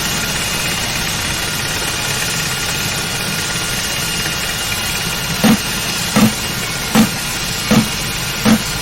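Steady drone of heavy industrial machinery, with a low rumble and a thin, high, constant whine. About halfway through, a regular heavy knocking starts, roughly one stroke every three-quarters of a second.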